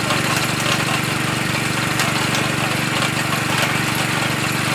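Engine of a motorised well-drilling rig running steadily at a constant speed while it drives the drill, with a few light clicks.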